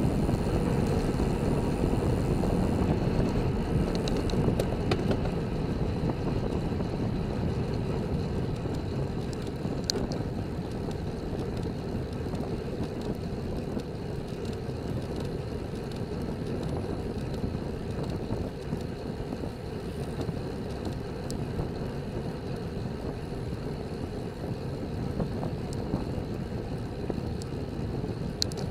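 Steady wind rush and tyre noise on the microphone of a camera mounted on a moving road bicycle, easing slightly as the bike slows, with a few faint clicks.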